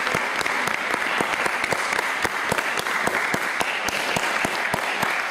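Audience applauding steadily with dense, irregular hand claps.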